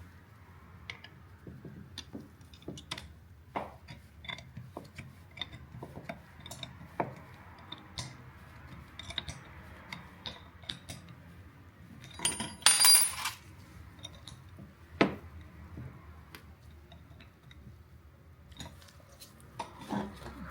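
Scattered clicks and taps of small metal parts and tools being handled. A louder, ringing metal clink comes a little over halfway through.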